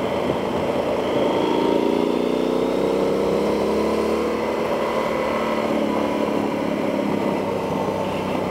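Yamaha XT1200Z Super Tenere's parallel-twin engine running under way, with its exhaust baffle fitted, heard from inside the rider's helmet over steady wind noise. The engine note rises for a few seconds as the bike accelerates, then holds steady.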